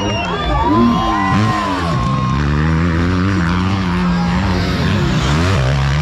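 Motocross dirt bike engine running hard down the track toward the listener, its pitch rising and dipping with throttle and gear changes. Spectators shouting in the first couple of seconds.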